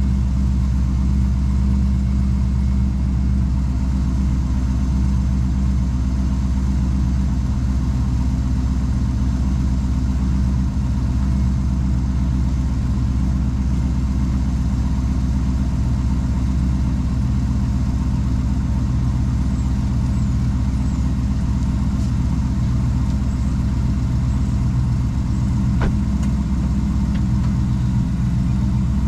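C5 Corvette's 5.7-litre V8 idling steadily.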